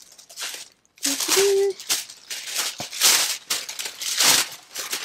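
Tissue paper crinkling and rustling in repeated bursts as a wrapped book is unwrapped by hand, with a short hummed voice sound about a second in.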